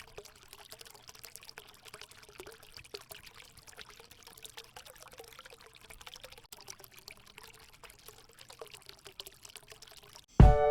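Water from a bamboo fountain spout pouring and trickling steadily, with many small splashes. Music starts abruptly near the end.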